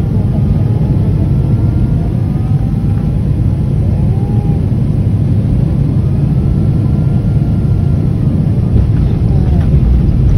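Airliner landing roll heard from inside the cabin: a loud, steady rumble of the engines and the wheels on the runway, growing slightly louder near the end.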